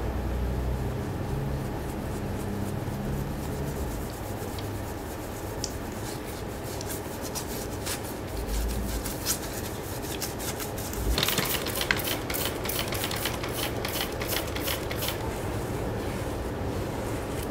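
Wet brush scrubbing liquid across a flat aluminium plate: a steady rough hiss, with scratchy clicks that come sparsely at first and grow dense about two-thirds of the way through.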